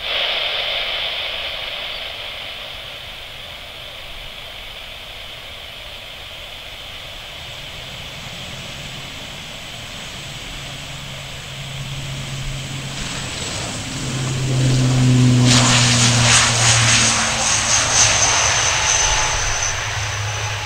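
ATR 72-500 turboprop at takeoff power on its takeoff roll. A low propeller drone and engine whine build steadily, loudest about three quarters of the way through as it passes close, then ease slightly as it lifts off.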